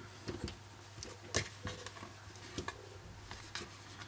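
Scattered small clicks and taps of fingers working at the plastic midframe of a Samsung Galaxy Note 2 smartphone during disassembly, with one sharper click about a second and a half in. A low steady hum runs underneath.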